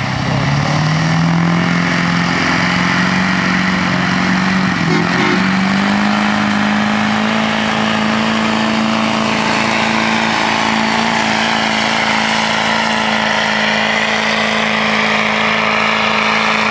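Pro street diesel pickup truck pulling a weight sled at full throttle. The engine note climbs in steps over the first five or six seconds, then holds high and steady under load.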